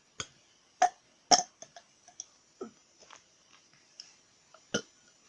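A person burping in short, abrupt bursts. The two loudest come close together about a second in, another comes near the end, and faint mouth clicks fall between them.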